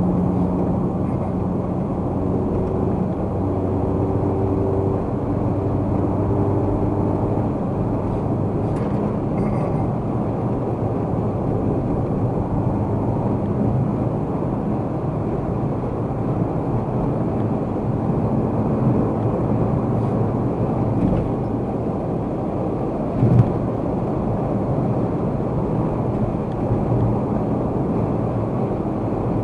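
Steady road and engine noise of a car cruising on an expressway, heard from inside the car, with a low hum that is strongest in the first several seconds. There is a single thump about 23 seconds in.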